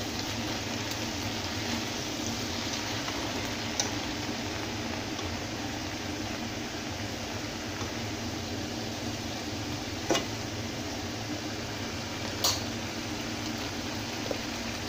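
Swiss chard leaves sizzling and simmering in a pan in the water they release as they wilt, a steady hiss. A metal utensil clicks sharply against the pan three times, about 4, 10 and 12 seconds in.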